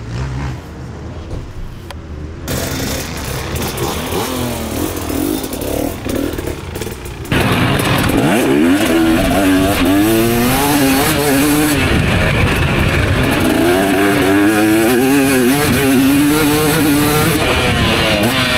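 Two-stroke motocross bike engines running, at first near idle and then revving, with the pitch sweeping up and down. About seven seconds in the sound turns suddenly much louder: an engine revved hard and repeatedly, climbing and dropping through the gears on a flat-out lap.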